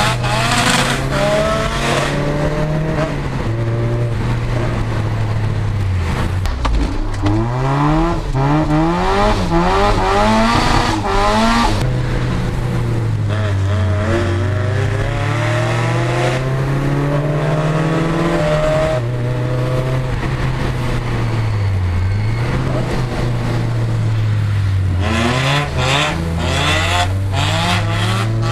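Rotrex-supercharged Mazda MX-5's BP-ZE 1.8-litre four-cylinder engine revving hard through a decat exhaust, its pitch rising and falling again and again, with tyres squealing as the car skids.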